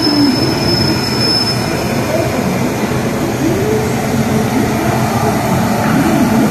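Electric locomotive moving slowly up to a passenger train's luggage coach for coupling: steady locomotive and rail running noise, with no coupling clash heard.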